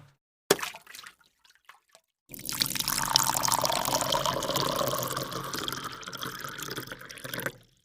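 A sharp click, then about five seconds of running, pouring water with a dense crackly texture, which stops suddenly.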